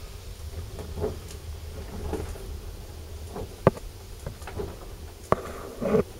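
Scattered knocks and handling noises in a boat's wheelhouse cabin: two sharp clicks about halfway through and a little later, then a short bump near the end, over a low steady rumble.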